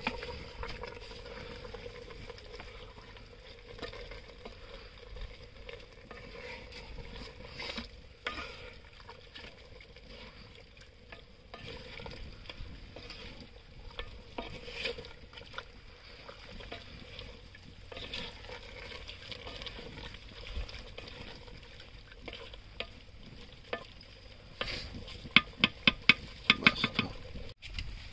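Mutton frying and sizzling in a clay handi as it is stirred, with small scraping clicks. Near the end comes a quick run of sharp knocks, the loudest sounds here.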